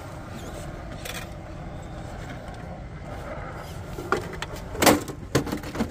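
Redcat Ascent RC rock crawler's electric motor and drivetrain running steadily as it crawls over rock, followed by several sharp knocks from about four seconds in, the loudest near five seconds.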